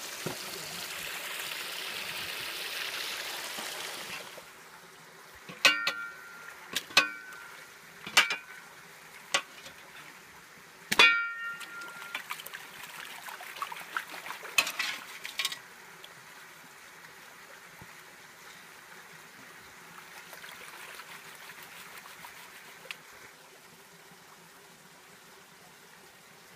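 Creek water splashing and swirling while a plastic gold pan is worked in shallow water. It is louder for the first few seconds. From about five to fifteen seconds in there is a run of sharp knocks and clinks, the loudest about eleven seconds in.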